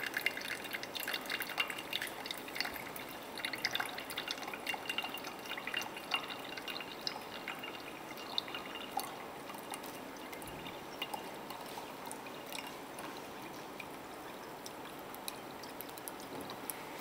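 Liquid poured in a thin stream from one glass beaker into another, trickling and dripping into the liquid below. The drips come thick over the first half and grow sparser near the end as the pour tails off.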